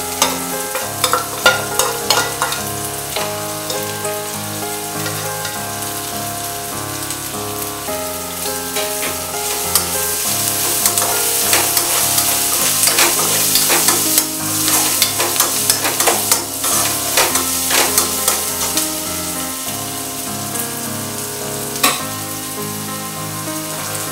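Soaked chana dal tipped into a nonstick kadai of onions, peas and green chillies frying in hot oil, then stirred: a steady sizzle, loudest in the middle, with scrapes and clicks of the spatula against the pan.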